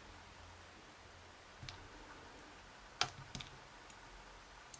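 A few short, faint metallic clicks, the loudest about three seconds in: small key pins of a dimple lock being dropped out of the cylinder during disassembly.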